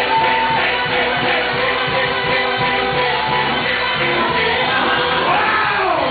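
Live church praise music: a band playing over a steady beat while many voices sing along.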